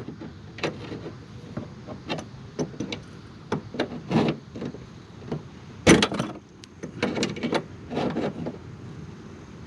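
Hand tool tightening a nut on a bumper quick-release bracket: a run of irregular clicks and knocks, the sharpest about six seconds in.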